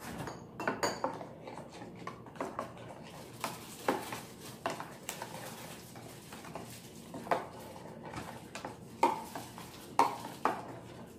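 Metal spoon stirring in a small glass measuring cup, clinking and scraping against the glass in irregular strokes, some of them sharper and louder.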